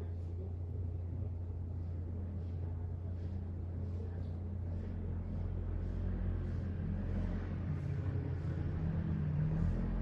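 Steady low rumble and hum, with faint, irregular light clicks about once or twice a second, typical of slow mechanical keyboard keystrokes.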